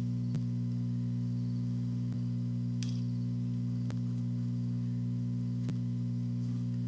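Steady low electrical hum, with a faint tick repeating about every second and three quarters.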